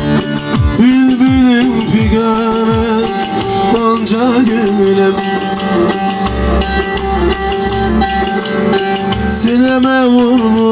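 Turkish folk music in bozlak style: an amplified bağlama (long-necked saz) with electronic keyboard playing an instrumental passage between sung verses. There are wavering held notes about a second in and again near the end.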